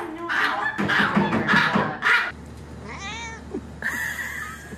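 A Chihuahua crying out in shrill, broken yelps while its nails are clipped, for about two seconds. Then a calico cat meows once, its pitch rising and falling.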